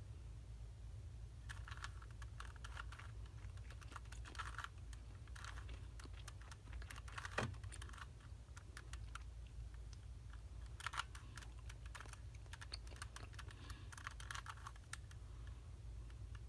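Plastic Rubik's Cube being twisted by hand: bursts of quick clicking as the layers turn, with short pauses between moves.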